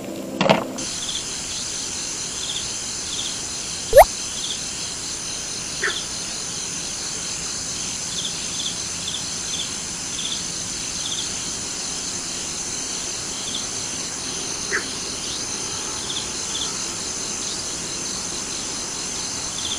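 Insects chirping: a steady high-pitched insect drone with short pulsed chirps repeating every half second or so. About four seconds in comes one sharp, loud click with a quick rising squeak, and there are two fainter ticks later on.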